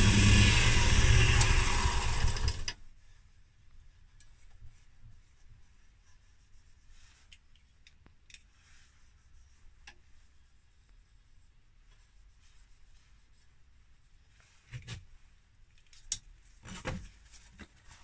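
Wood lathe running with sandpaper on the spinning pen blank, a steady motor hum with a hiss, which stops suddenly about three seconds in. After that it is quiet, with faint handling sounds and a few light knocks and rustles near the end.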